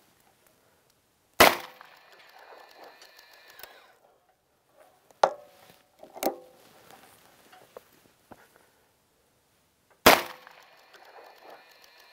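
Two gunshots from a .44 Special single-action revolver, one about a second and a half in and one near the end, each followed by a long ringing echo. Between them come two shorter sharp knocks as the revolver and its machine rest are handled and reset.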